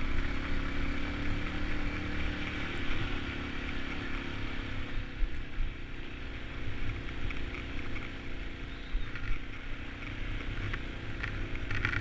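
2014 Yamaha XT250's single-cylinder air-cooled engine running steadily at easy trail speed, with a rough low rumble underneath.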